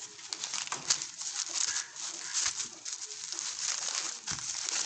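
Plastic bubble wrap crinkling in quick, irregular crackles as hands handle and unwrap it.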